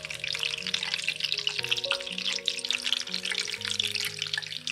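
Batter-coated zucchini pieces deep-frying in hot oil in a pot, a dense, steady crackling sizzle. Soft background music with held notes plays underneath.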